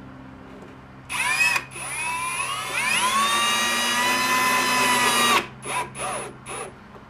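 Cordless drill-driver driving a pan-head screw through a pine drawer box into its front. A brief spin about a second in, then the motor winds up to a steady whine for a couple of seconds and stops abruptly, followed by three quick trigger bursts as the screw is seated.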